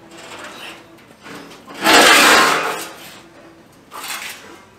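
Sheet-steel headboard panel from a 1954 Fargo half-ton's pickup box being lifted off the concrete floor and stood on end. It scrapes and flexes with a loud metallic rattle that lasts about a second, starting about two seconds in, and gives a lighter knock near the end.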